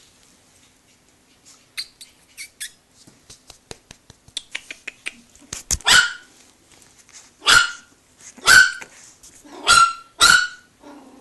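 A small dog barking: five sharp, high barks about a second apart, starting about halfway through, after a run of light clicks and taps.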